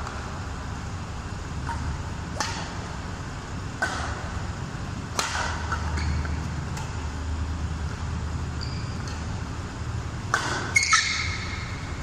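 Badminton rally: rackets hitting the shuttlecock in sharp cracks every second or two, with short squeaks of shoes on the court mat near the end, over a steady low hum.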